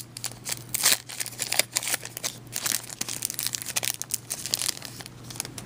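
A 2011 Panini Playbook football card pack's wrapper crinkling as it is torn open by hand: irregular crackles and rustles that thin out near the end.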